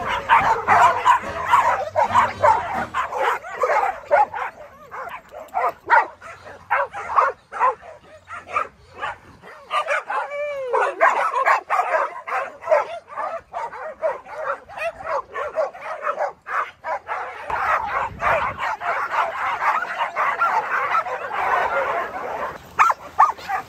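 A large pack of dogs barking and yipping together, the barks overlapping almost without a break. About ten seconds in, a single cry glides down in pitch.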